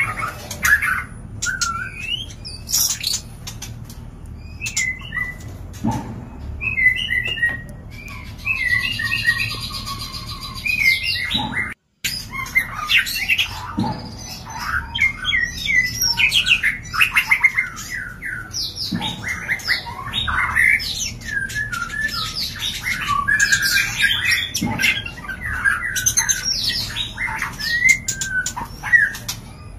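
White-rumped shamas (murai batu) calling during mating: a busy, unbroken run of varied chirps, short whistles and harsh notes, with a few dull thumps. The sound cuts out for a moment just under halfway through.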